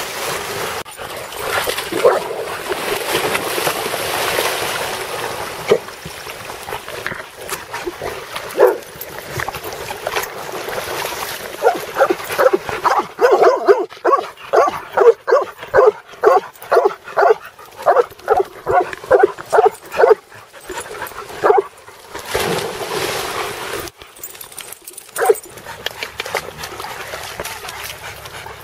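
Dogs barking, with a long run of quick barks, two or three a second, through the middle and single barks before and after. Water splashes near the start as a dog lands in a pond.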